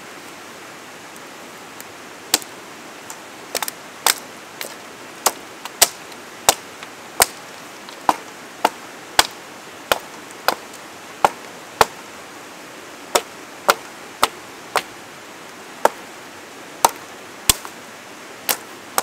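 A small 12-inch hatchet with a hand-forged carbon-steel head and an ash handle chops branches off a downed sapling while delimbing it. About two dozen sharp chops come at a steady pace, roughly one every half-second to a second, starting about two seconds in.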